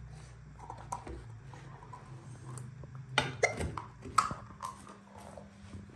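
Kitchen scissors snipping through baked pizza crust: a few short, sharp crunching cuts bunched together about halfway in.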